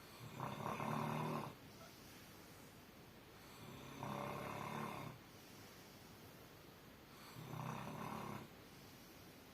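Snoring: three loud snores in a slow, even rhythm, one about every three and a half seconds, each lasting about a second.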